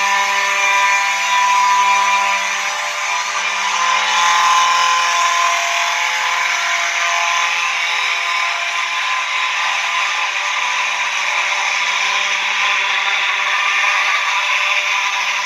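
Simplex fire alarm horns, the 4903-9219 and 4903-9220 electromechanical horn strobes and a 4901-9805 horn, sounding together in a loud, steady, unbroken buzzing blare during an alarm system test.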